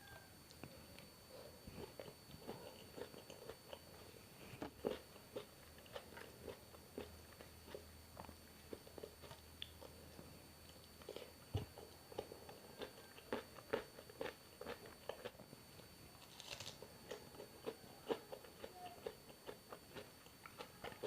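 A person chewing and biting food close to the microphone: many short, irregular crunchy clicks of mouth sounds.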